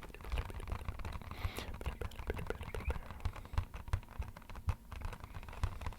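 Fingertips tapping quickly and irregularly on an empty box, a dense patter of light taps that sounds like rain.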